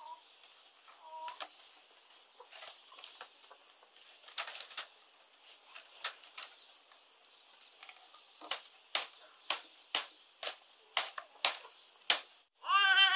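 Sharp, irregular clicks and taps that settle into about two a second, then a baby's short wavering babble near the end.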